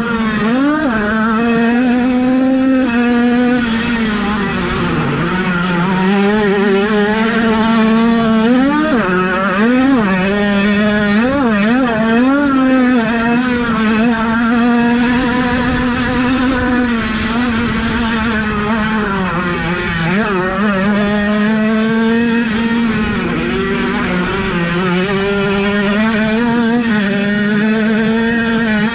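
Several 50cc two-stroke minicross motocross bikes running on a dirt track. Their engines rev up and down as they ride, with one holding a steady high drone while others rise and fall around it.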